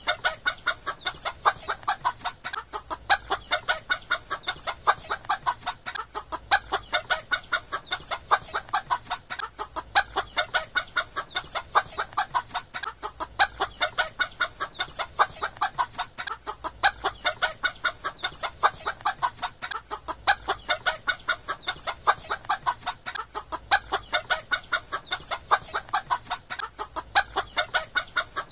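Chickens clucking, short rapid clucks in a steady, even rhythm, with the same pattern repeating every three to four seconds.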